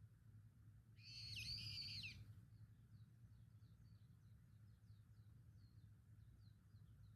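Wild birdsong: one clear, high call lasting about a second, starting about a second in, then faint, scattered chirps of small birds over a low, steady background rumble.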